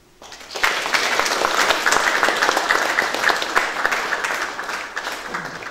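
An audience applauding. It starts about half a second in and eases off near the end.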